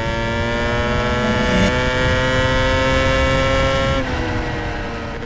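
An engine revving high and held, its pitch climbing slowly, then easing off about four seconds in and fading out.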